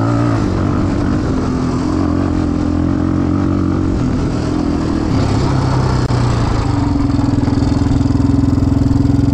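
Yamaha Raptor 350 ATV's single-cylinder four-stroke engine running steadily, its pitch shifting a few times and settling higher and a little louder about two-thirds of the way in.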